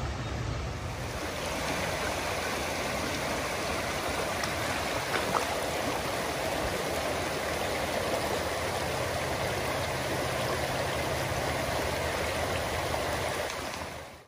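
Creek water rushing over rocks, a steady wash of running water that fades out near the end.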